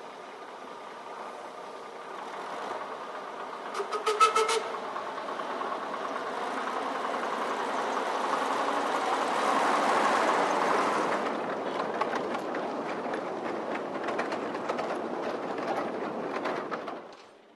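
Two-foot gauge colliery train of small coal tubs passing close, its wheels clattering over the rail joints. The sound grows louder to a peak about ten seconds in, then eases, with a brief toot of a horn or whistle about four seconds in.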